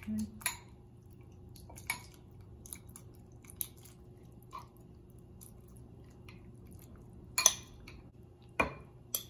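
Metal spoon clinking and scraping against a glass bowl as wet shrimp ceviche is spooned into a glass goblet, with soft wet plops between the clicks. The sharpest clinks come near the end.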